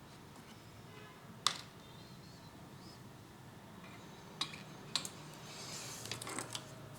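A few sharp clicks and clinks of small hard objects: three single ones spaced out, then a short cluster near the end, over a faint steady hum.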